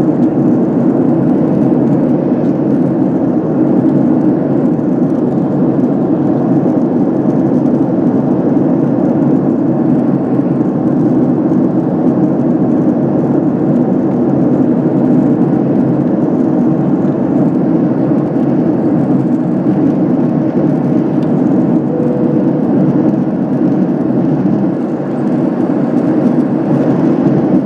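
Steady low rumble of cabin noise inside a Boeing 767-300 airliner: jet engines and airflow, holding at an even level.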